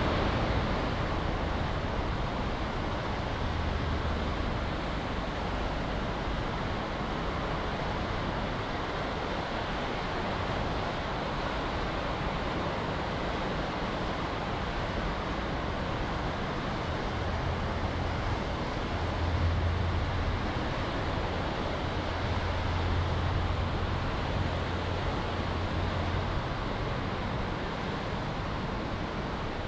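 Heavy rain pouring steadily, an even hiss, with a low rumble underneath that swells and fades, loudest a little past the middle.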